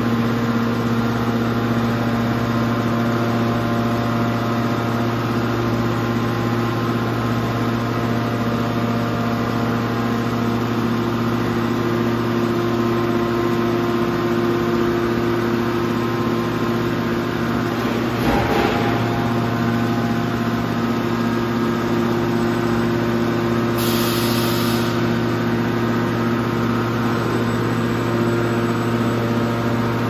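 Steady hum of a hydraulic metal baler line running, with several fixed tones held throughout. A single clunk comes about two-thirds of the way through, and a short hiss follows a few seconds later.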